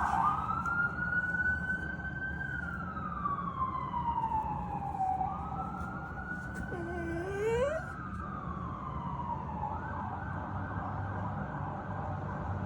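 An emergency vehicle siren wails, sweeping slowly up and down in long cycles of several seconds and then holding a steady high tone. About seven seconds in, a chiweenie gives a short rising howl beneath it.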